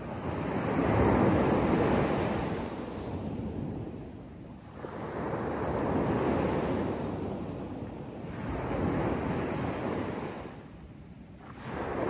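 Small waves breaking and washing up a sandy beach, the surf swelling and fading about every three to four seconds: three swells, the loudest about a second in.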